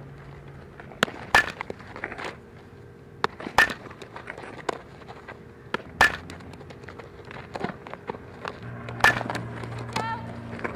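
Softball infield practice: sharp cracks of ground balls being hit and fielded into a glove, about five in all, a few seconds apart.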